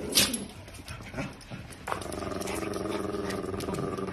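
Small dog growling: a brief sharp yelp near the start, then from about two seconds in a steady, rattling growl, which the owner likens to a car exhaust.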